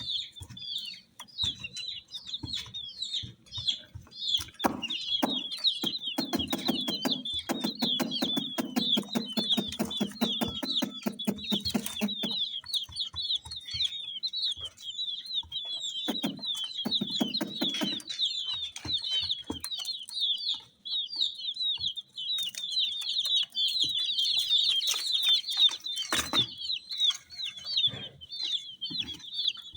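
A group of baby chicks peeping continuously, many high, short, falling chirps overlapping. A stretch of rapid clicking comes from about six to twelve seconds in, and a shorter one around seventeen seconds.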